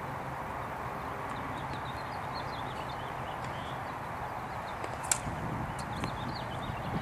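A single sharp crack of a tennis racket striking the ball on a serve about five seconds in, followed by a couple of fainter knocks. Steady background hiss with small birds chirping throughout.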